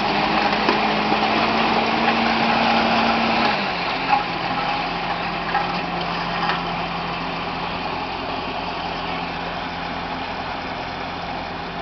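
LTMG LT65 skid steer loader with a snow blower attachment, its engine running steadily; about three and a half seconds in the engine note drops slightly and the sound eases a little.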